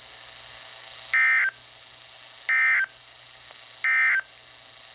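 EAS end-of-message data bursts from a NOAA Weather Radio broadcast: three short, shrill, warbling digital tone bursts about a second and a half apart, over faint radio hiss. They signal the end of the severe thunderstorm warning.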